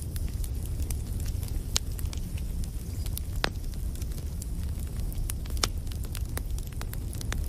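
Wood fire burning: a steady low rumble of flames with irregular crackles and pops of the burning logs, three of them sharper than the rest.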